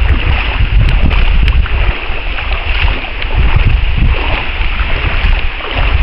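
Wind buffeting the microphone in a heavy low rumble that eases briefly about two seconds in and again near the end, over a steady hiss of water swishing around someone wading knee-deep through floodwater.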